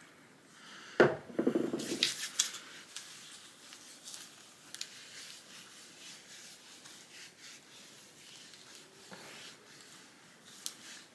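Hands rubbing hair serum between the palms, loudest about a second in for a second or so, then soft, irregular rubbing as the serum is worked through long hair and the hair is brushed out. A small click near the end.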